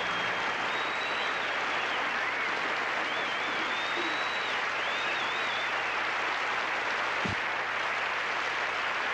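Studio audience applauding steadily, with a few whistles rising and falling over the clapping in the first several seconds.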